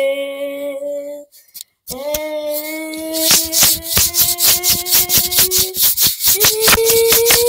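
A voice holding long, drawn-out sung notes, pausing briefly for breath about a second in, then joined about three seconds in by fast, even rattling clicks at about six a second; near the end the held note jumps up in pitch.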